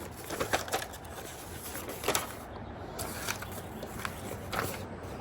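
Packaging and paper being handled during an unboxing: scattered rustles and light clicks, a few sharper ones about two, three and four and a half seconds in.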